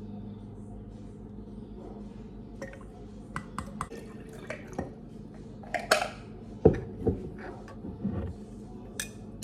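Coffee poured from a ceramic mug into a glass mason jar of almond milk, with light clicks and clinks of a plastic measuring spoon, mug and glass. A heavier knock comes about two-thirds of the way in, over a steady low hum.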